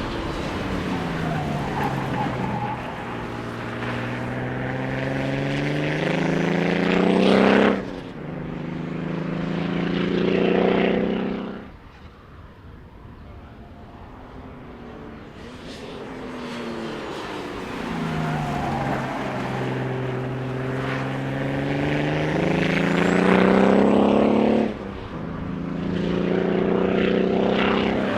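Ford AU Falcon race car's engine under hard acceleration, its note climbing in pitch with a sharp gear change about seven and a half seconds in. It eases off near twelve seconds, goes quieter for a few seconds, then pulls hard again with another sharp shift near the end.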